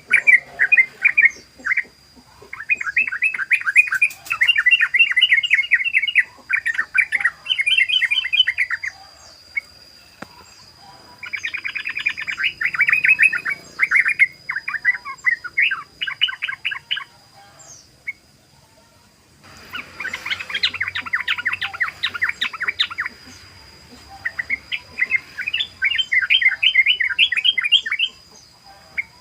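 Yellow-vented bulbul (trucukan) singing its rapid bubbling 'ropel' song: fast runs of chattering notes in bursts of one to three seconds, repeated with short pauses. A faint steady high whine runs underneath.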